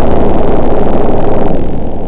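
Chainsaw engine running hard at full throttle, then dropping off sharply about one and a half seconds in and dying away.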